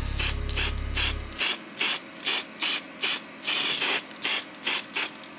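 Aerosol spray-paint can giving short, quick bursts of hissing spray, about two or three a second, with one longer burst about three and a half seconds in.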